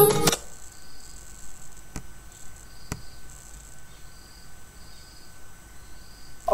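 Music from an online radio stream cuts off abruptly as the player switches station and buffers. What remains is a faint hiss with soft high chirps about once a second and two light clicks about a second apart.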